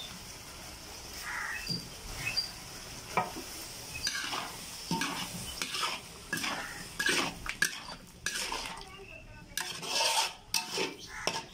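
Metal spatula stirring and scraping diced potatoes and tomatoes around a metal wok, with irregular clacks and scrapes against the pan that grow busier in the second half, over a light sizzle.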